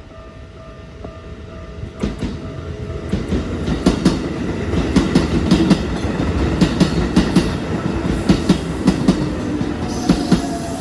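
Keikyu Daishi Line electric train passing over a level crossing: a rumble that builds as it approaches, then a steady run of wheel clacks over the rail joints, with a falling whine near the end. The crossing bell's ringing tone fades under the train at first.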